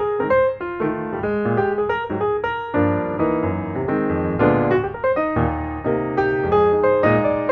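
Background piano music: a flowing, steady run of quick notes.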